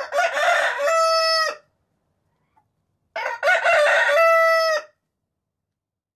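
A rooster crowing twice, each crow rough at first and then ending on a long held note, about three seconds apart.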